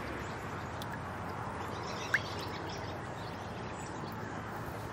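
Steady outdoor background noise with one short, rising bird chirp about two seconds in.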